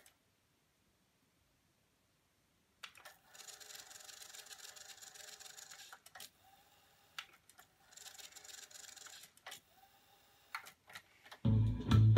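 Sony TC-K222ESG cassette deck's tape transport, running on freshly replaced rubber belts, fast-winding the tape for about three seconds, stopping with a click, then winding again for a shorter spell, followed by a few more clicks. About a second before the end, playback starts and music with guitar comes from the tape.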